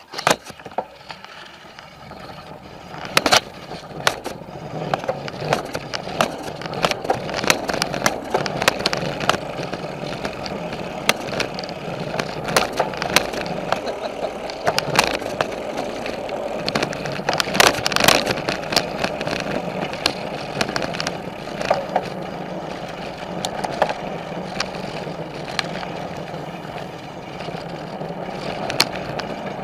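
Mountain bike being ridden along a trail and over a wooden plank boardwalk: a steady rolling rumble of the tyres, with frequent sharp clicks and knocks as the bike rattles over the boards.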